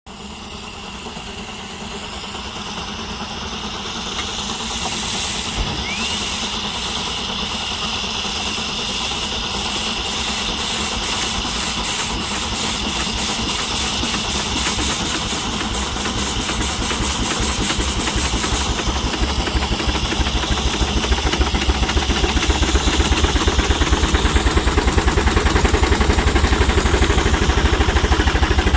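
Case steam traction engine running, with a steady steam hiss at first, then exhaust beats that start a few seconds in and quicken and grow louder. The engine is being opened up hard, enough to throw a column of sparks from the stack.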